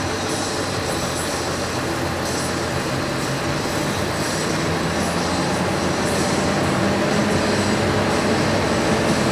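Scania R500 truck's V8 diesel engine running as the truck drives slowly, heard from inside the cab as a steady low drone with road and cab noise. The engine note climbs slightly and gets a little louder over the last few seconds as the truck gathers speed.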